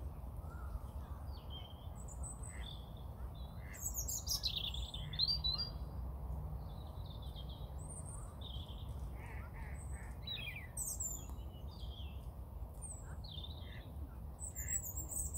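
Several wild birds calling and chirping in short, overlapping bursts, with a flurry of calls around four seconds in, over a steady low rumble.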